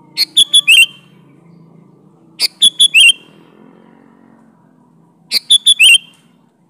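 Sooty-headed bulbul (kutilang) singing: three loud, identical short phrases of about four quick whistled notes each, the last notes dropping in pitch, repeated every two to three seconds.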